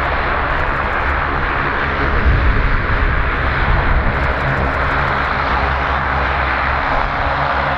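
Twin General Electric CT7 turboprop engines of a CASA/IPTN CN-235-100 running at low power as it taxis, a steady propeller drone with a hissing whine over it, swelling slightly about two seconds in.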